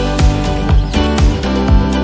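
Background music with a steady beat, a bass drum hitting about twice a second under sustained chords.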